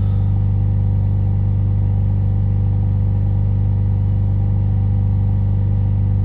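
Ford Transit Custom's diesel engine held at steady raised revs, heard from inside the cab, a constant even drone. The revs are held up to push DPF cleaning fluid through the particulate filter and clear the soot.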